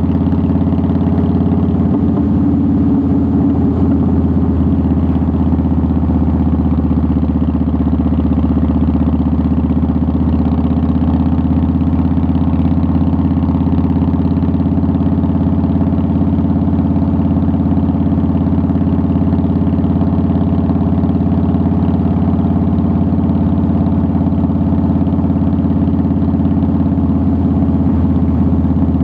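2009 Harley-Davidson Softail Deluxe's air-cooled Twin Cam 96 V-twin running steadily, its exhaust note holding an even pitch with no revving.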